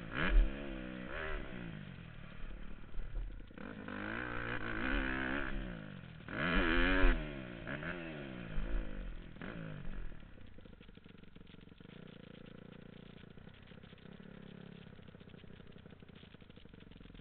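Motocross bike engine revving up and down hard as it is ridden over jumps, with loud bursts of throttle about half a second in and again near seven seconds. From about ten seconds in it settles to a quiet, steady idle.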